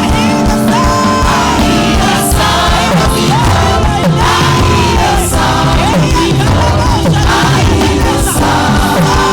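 Gospel worship music: singers over a full band with a steady beat.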